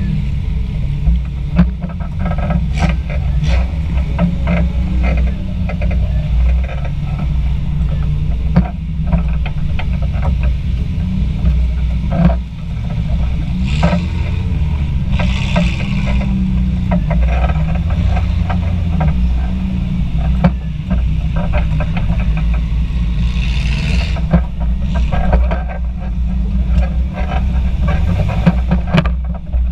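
Jeep engine running at low speed while crawling along a rough dirt trail, heard as a steady low rumble from the camera on the hood. Frequent knocks and rattles come through it, with a few brief hissing swishes in the middle and near the end.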